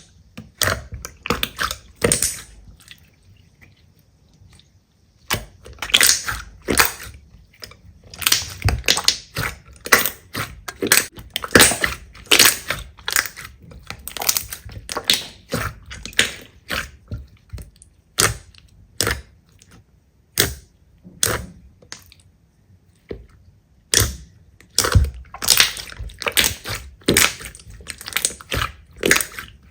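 Slime being squished and poked by hand: irregular runs of sharp wet clicks and pops, broken by a couple of short pauses.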